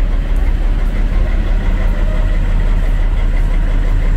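SU45 diesel locomotive's Fiat engine idling at a standstill: a steady low rumble.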